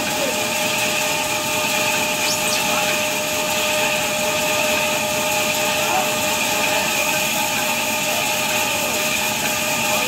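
Large vertical band saw running with a steady whine while its blade cuts lengthwise through a big log.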